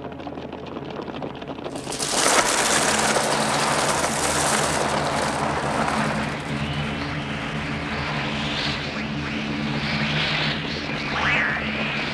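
A large flock of crows taking off about two seconds in: a sudden dense whirring of many wings with harsh cries, over a steady low drone. Rising and falling shrieks come through near the end.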